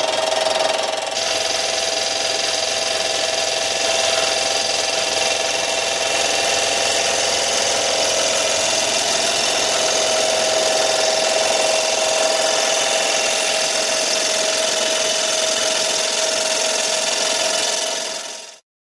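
Manual milling machine running a fly cutter across a cast iron exhaust manifold flange on a finish pass: a steady mechanical drone with a whine, its high hiss growing brighter about a second in. The sound cuts off suddenly near the end.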